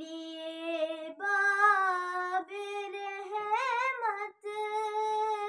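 A girl singing a naat solo with no accompaniment. She draws out long, held notes and steps up in pitch about a second in. A wavering ornamented run comes a little past the middle, followed by a brief breath break.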